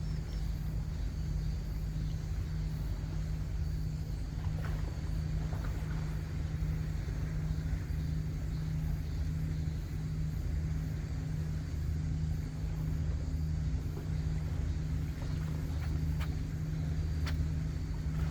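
Boat engine running steadily at idle: a constant low hum, with a few faint ticks over it.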